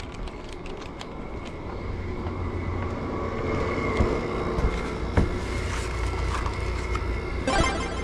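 Car driving, heard from inside the cabin: a steady low road rumble that grows a little louder after the first couple of seconds. Two sharp knocks come in the middle, and a short rattle near the end.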